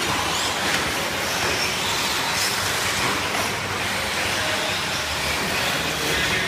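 A pack of electric short-course RC trucks racing, their motors and gears whining in overlapping rising and falling pitches over steady tyre and track noise.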